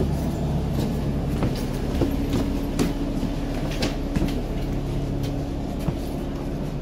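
Alexander Dennis Enviro 400 double-decker bus standing with its engine idling, a steady low hum and rumble through the cabin. Scattered knocks and clicks sound over it.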